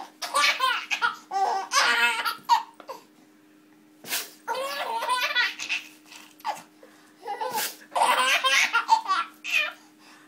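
Infant laughing hard while being tickled, in three bouts with short pauses between them, the last starting about seven seconds in.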